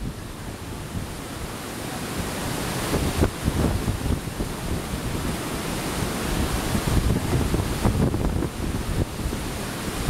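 Heavy typhoon rain pouring down in a steady hiss, with wind gusting against the microphone in an uneven low rumble.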